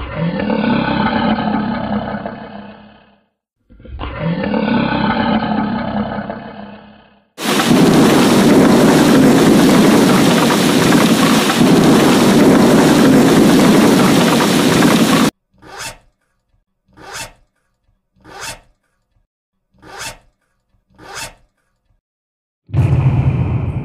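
A string of sound effects. First come two similar pitched sounds of about three seconds each, rising and falling. Then steady heavy rain runs for about eight seconds, followed by five short zipper pulls, evenly spaced.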